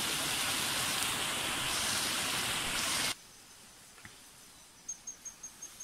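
A steady, even rushing noise that cuts off abruptly about three seconds in. After it, quiet with a few faint clicks, and a faint, rapidly pulsing high-pitched chirp near the end.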